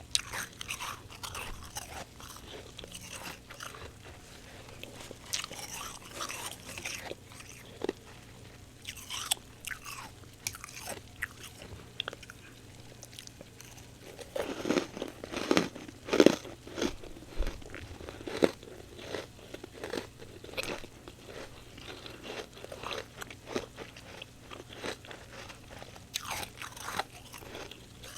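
Close-miked biting and chewing of fresh humidifier frost: soft icy crunches throughout, with a run of heavier, louder crunching about halfway through.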